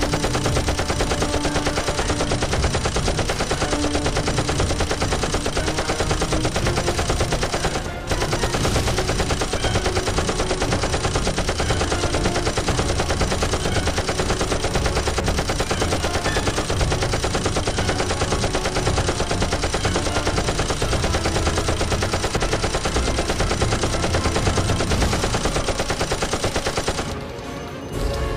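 Film sound effect of sustained rapid automatic gunfire, a dense unbroken stream of shots with a brief gap about eight seconds in, easing off near the end.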